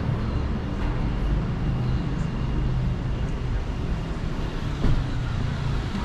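Street traffic going by: a steady low rumble of passing vehicles, with a short thump about five seconds in.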